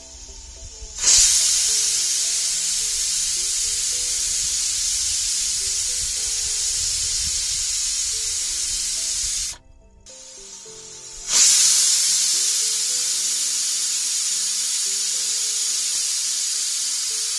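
Pressure cooker whistling twice, each a sudden loud jet of hissing steam lasting several seconds, the second starting about eleven seconds in; the two whistles mark the dal inside as cooked.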